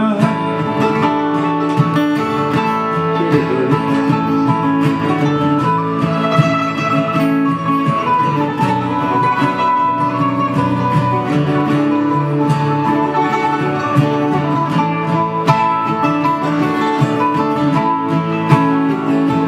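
Acoustic guitars picking and strumming an instrumental passage of a folk-country song, with a picked melody line over the chords.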